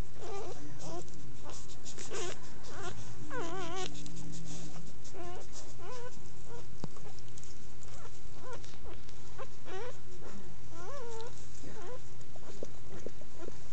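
Newborn puppies squeaking and whimpering in short, wavering cries that come irregularly, over a steady low hum.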